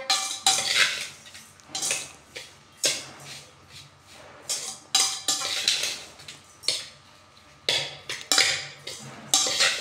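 A metal spoon scraping and clinking against a stainless steel bowl in irregular strokes, stirring crumbly puttu mixed with grated coconut and sugar.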